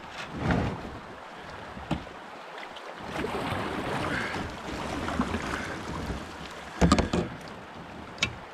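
Canoe paddle strokes splashing hard in shallow, running creek water, with knocks from the paddle and hull. A louder thump about seven seconds in.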